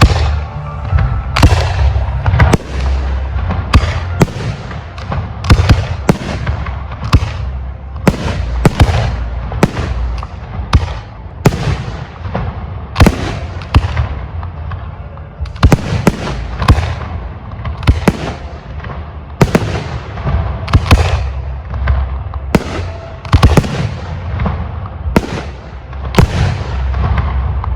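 Aerial fireworks display: shells bursting in rapid succession with sharp bangs, about one or two a second, over a continuous low rumble and crackle.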